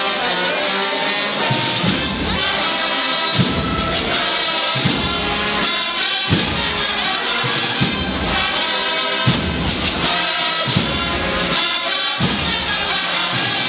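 Brass band playing a slow processional march, with many sustained notes over a deep drum beat about every second and a half.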